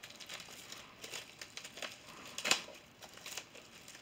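Plastic shrink wrap on a Blu-ray box set crinkling and crackling as it is handled and pulled open, with one sharper, louder crackle about two and a half seconds in.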